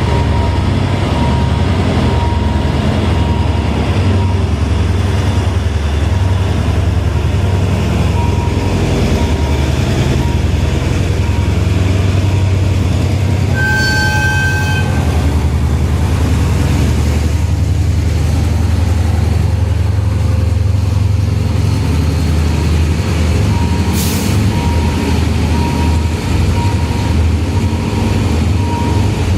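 Heavy diesel engines rumbling steadily in dense road traffic. A single horn toot of about a second and a half comes about halfway through, and there is a sharp click a few seconds before the end.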